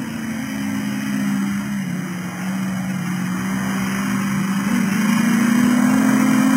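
Engine of a modified Land Rover comp safari racer running hard off-road. Its note drops slightly about two seconds in, then rises and grows louder over the last couple of seconds as the car accelerates toward the listener.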